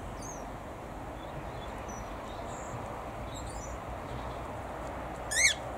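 Birds in a mixed aviary: faint, short, high chirps here and there, then one brief, loud call with quick falling sweeps in pitch a little after five seconds in, over a steady background hiss.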